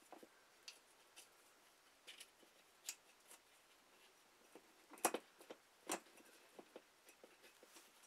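Faint clicks and light scraping of a glass light globe being fitted to a ceiling fixture's metal base and its holding screw turned by hand, with two sharper clicks about five and six seconds in.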